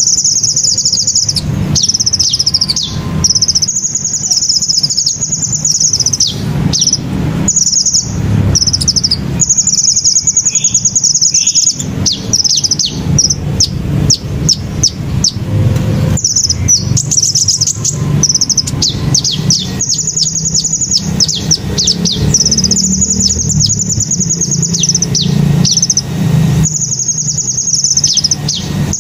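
A sunbird singing rapid, high-pitched trilled phrases of one to three seconds each, repeated again and again with short chirps between, over a low steady rumble.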